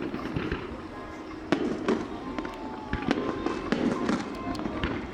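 Fireworks going off in a show: a string of sharp bangs and crackles, the loudest about a second and a half in and again about three seconds in.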